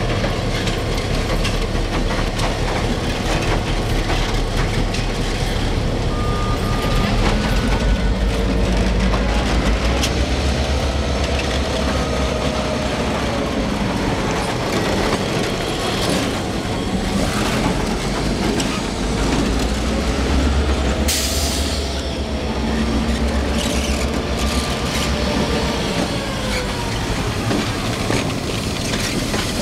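CN EMD GP9RM diesel locomotives rumbling past slowly at close range, with a faint whine sliding up and down several times. A short hiss comes about two-thirds of the way through.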